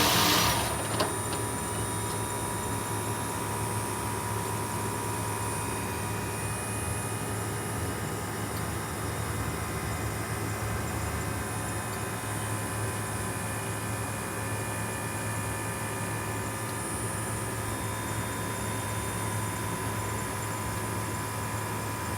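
2005 Toyota Prius with a newly fitted catalytic converter. The engine's idle drops away sharply about half a second in, leaving a steady low hum with a few faint constant tones.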